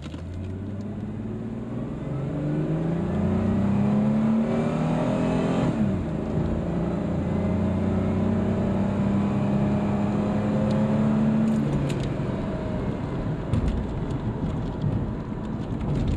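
A 2002 Ford Mustang's 3.8-litre V6 with stock exhaust manifolds and automatic transmission, accelerating at full throttle, heard from inside the cabin. The engine note climbs for about six seconds, drops at the upshift, and holds high through the next gear. It eases off about twelve seconds in.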